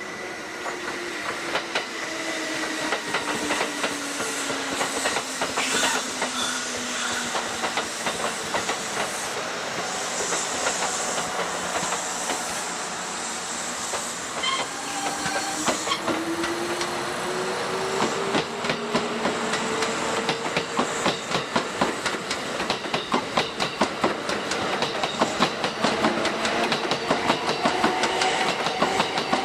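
Electric trains at a station platform. A traction-motor whine falls in pitch as a train slows, and a hiss of air comes through the middle. Then a motor whine rises as a train accelerates away, with rapid clacking of wheels over rail joints that grows louder near the end.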